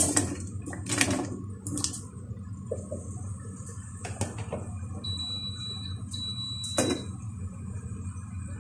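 A stainless steel cooking pot and its glass lid handled on a gas stove: a few sharp metal-and-glass knocks and clinks, the firmest near the end, over a steady low hum and hiss. A faint thin high tone sounds for a couple of seconds in the middle.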